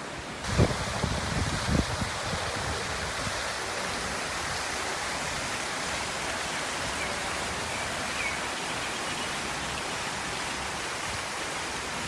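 Water fountain jets splashing into their pool: a steady, even rushing hiss that starts about half a second in, with a couple of low thumps on the microphone near the start.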